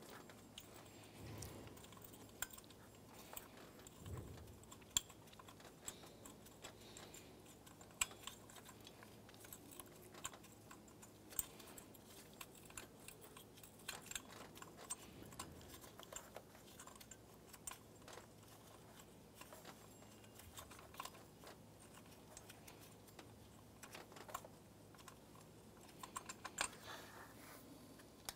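Faint, irregular clicks and light metallic clinks of hand tools and metal parts as the serpentine belt idler pulley's centre bolt is worked loose and the pulley taken off, with clusters of quick clicks around the middle and near the end.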